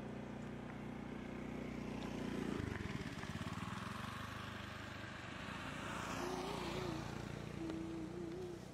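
A motor vehicle engine running steadily, then a rushing noise that swells and fades from about four to seven seconds in, as of traffic passing.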